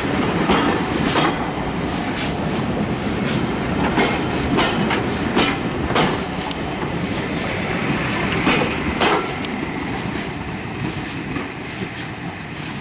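Railway passenger coaches rolling past and away, their wheels clicking irregularly over the rail joints, the sound fading over the last few seconds as the train draws off.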